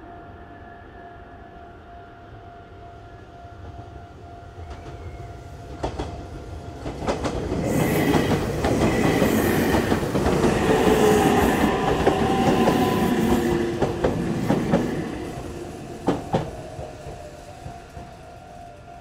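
Electric commuter train passing close by: rumble and motor whine build about seven seconds in, stay loud for several seconds, then fade with a few sharp rail-joint clacks. A steady thin tone runs underneath throughout.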